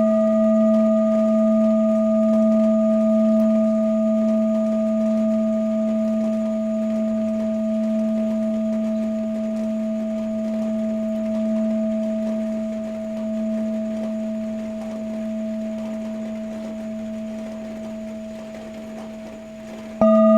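Tibetan singing bowl ringing on after a strike: a low hum with two higher overtones, slowly wavering as it fades. It is struck again just before the end.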